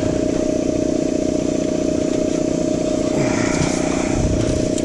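An engine idling steadily: a constant hum with one strong steady tone.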